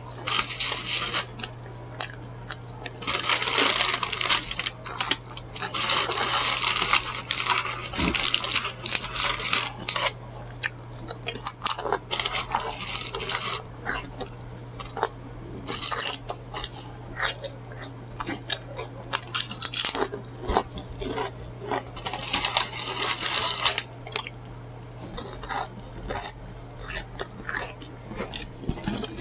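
Close-miked chewing and crunching of food in irregular bursts, some lasting a second or two, with many short clicks, over a low steady hum.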